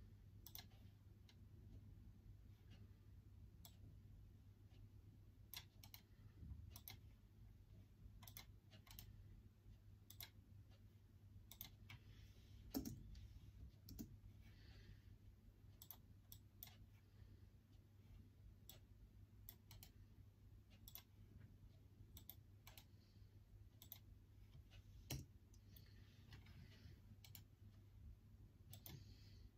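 Faint, irregular clicks of sparse typing on a MacBook's laptop keyboard, spaced unevenly with pauses, over a steady low hum.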